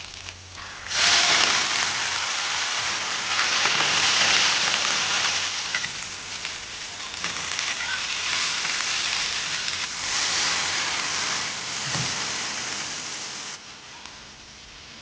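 Food frying in a hot pan: a loud, steady sizzle that starts suddenly about a second in and drops away sharply near the end.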